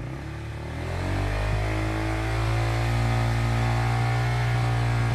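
Honda RS150's single-cylinder four-stroke engine revving up over about the first second, then held steady at around 8,000 rpm.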